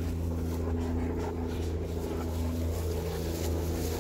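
A motor running steadily, a low even hum that holds one pitch throughout.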